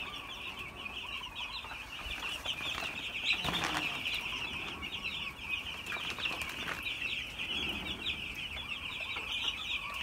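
A large flock of young chicks peeping continuously, a dense chorus of many short high chirps overlapping.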